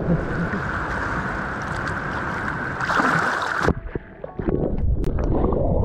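Steady rush of sea water and wind on the microphone for about three and a half seconds, cutting off abruptly; then quieter splashing and sloshing of water as a swimmer's legs kick at the surface.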